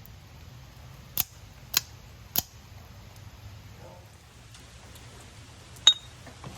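Sharp metallic clicks from a Krate Tactical OTF knife: three about half a second apart, then a louder one near the end that rings briefly.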